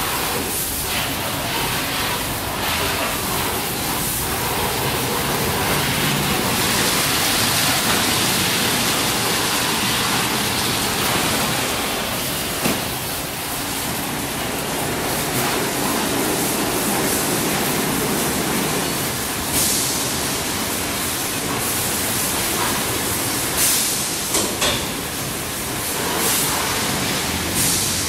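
Automatic car wash's big rotating brushes spinning and scrubbing a car's front amid spraying water: a steady rushing hiss, with a few brief sharper slaps in the second half.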